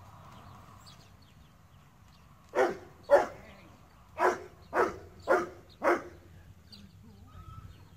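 Bouvier des Flandres barking six times while working sheep: a pair of barks, then four more in a row about half a second apart.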